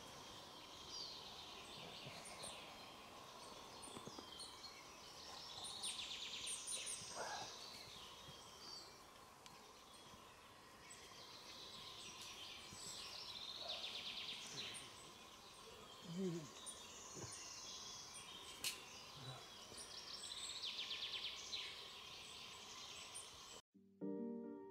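Faint woodland ambience with birds singing: repeated high chirping trills every few seconds over a steady hiss, with a sharp click or two. It cuts to piano music in the last second.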